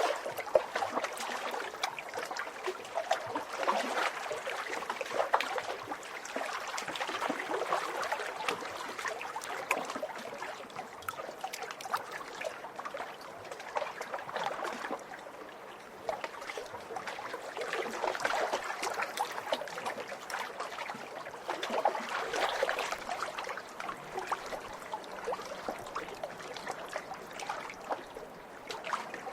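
Small lake waves splashing and lapping against the shore, a continuous irregular patter of little splashes that swells and eases every few seconds.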